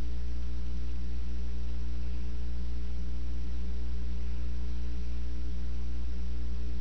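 Steady low electrical hum with a faint even hiss, unchanging throughout: mains hum in the recording.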